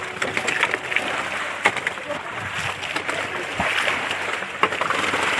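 Water splashing and sloshing with irregular wet slaps and knocks as batfish and a fishing net are handled on a bamboo fish-corral platform.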